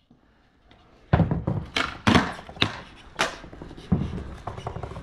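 Skateboard on a concrete slab: a string of sharp clacks and thuds from the deck and wheels, starting about a second in, as the skater pushes and pops the board.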